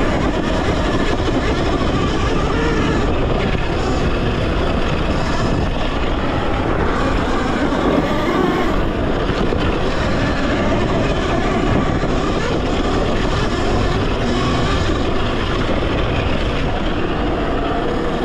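Steady wind rush and rumble over the microphone, with tyre and drivetrain noise, as a Talaria Sting electric dirt bike is ridden off-road.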